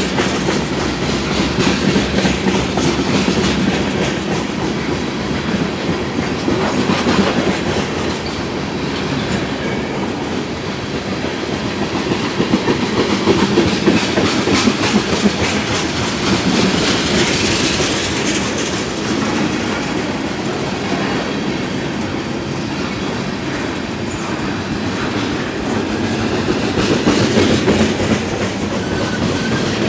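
Freight cars of a long CSX mixed-freight train rolling past at speed, a steady rolling noise with wheels clacking over rail joints.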